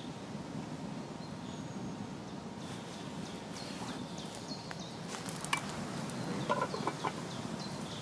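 Small wood fire crackling in a dug-out scout's fire pit, the snaps coming thicker after the first couple of seconds. A few sharp metallic clinks in the second half as an aluminium mess tin is set on its stick supports over the flame.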